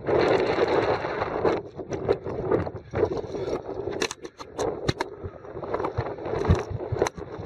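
Wind buffeting the microphone for about the first second and a half, then a run of short scrapes and knocks as hands, shoes and gear brush against granite close to the microphone.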